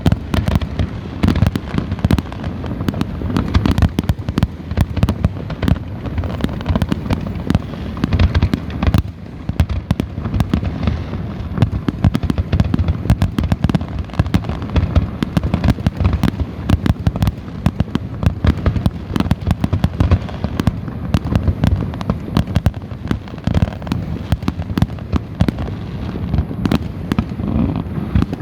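Fireworks going off in a dense, continuous barrage of overlapping booms and pops, many bursts a second.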